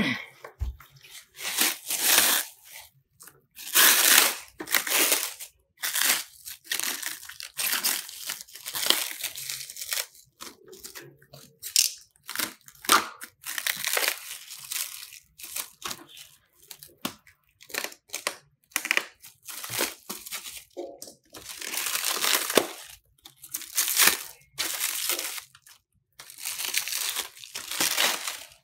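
Clear plastic stretch wrap being torn and pulled off a computer monitor by hand: irregular bursts of crinkling and tearing film with short pauses between.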